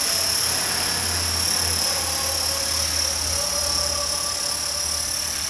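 Align T-Rex 450 SE electric radio-controlled helicopter in flight: the main rotor's steady low drone and wash, with a steady high whine over it.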